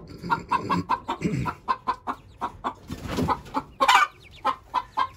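Young chickens calling with a steady run of short repeated peeps, a few a second, with a brief rustling noise about three seconds in.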